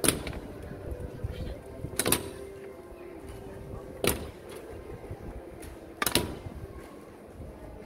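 Sharp single percussive strokes, evenly spaced about two seconds apart, each ringing briefly, over a low background murmur.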